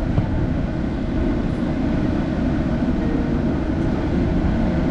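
Steady low rumble of a vehicle's engine running, heard from inside the cab.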